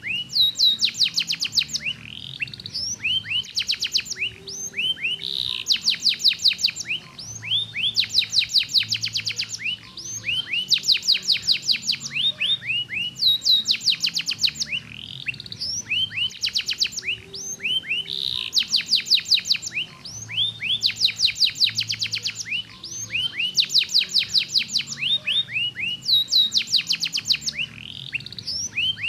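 Domestic canary singing a long, fast song: rapid trills of repeated notes mixed with quick falling whistles, phrase after phrase with hardly a pause.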